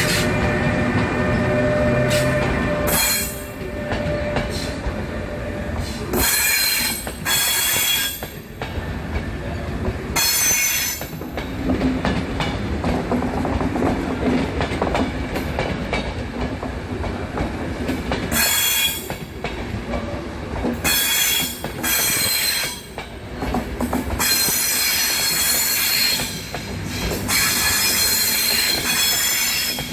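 Passenger train rolling through a station, its wheels squealing in repeated high-pitched bursts of one to several seconds over a steady rumble.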